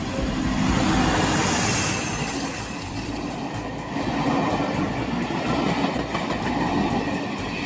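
A train running on the track: a steady rumble of wheels and running gear, with a hiss near the top end for the first two seconds.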